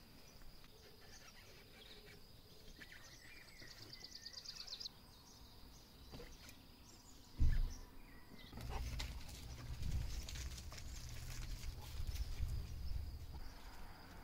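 Quiet outdoor background with a fast high bird trill about four seconds in. A sharp thump comes about seven and a half seconds in, followed by several seconds of low rumbling and knocks from handling work inside the pickup's cab.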